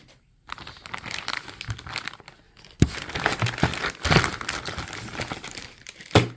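Plastic parts bag crinkling and rustling as an RC steering kit's packaging is opened and its contents handled, with two sharp clicks, about three seconds in and near the end.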